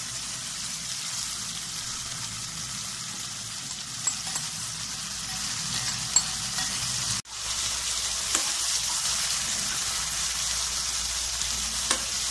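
Chopped onions, tomatoes and peppers sizzling steadily in hot oil in a stone-coated frying pan as they are stirred, with a few light clicks against the pan. The sizzle cuts out for an instant about seven seconds in, then carries on.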